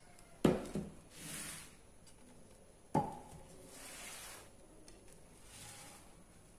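Plates being set down on a table: two knocks about two and a half seconds apart, the second with a brief ringing clink, with soft rustling in between.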